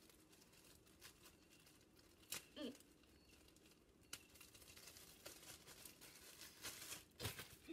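Faint handling of a squishy toy's packaging as it is opened, with a few light clicks and a brief hum about two and a half seconds in.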